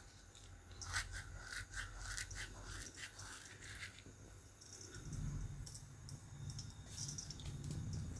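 Ajwain (carom) seeds being crushed and rubbed between the palms: faint dry scratching and crackling for about the first four seconds. After that it goes quieter, leaving a low hum.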